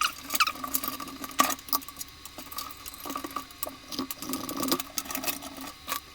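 Irregular clicks, knocks and light clatter of hands working inside a desktop computer case, pulling out cable connectors, over a steady hum.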